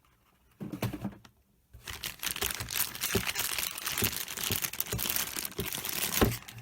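Packaging crinkling and rustling as a new multimeter is unwrapped: a short burst about half a second in, then continuous crinkling from about two seconds in, with a few soft knocks, the loudest near the end.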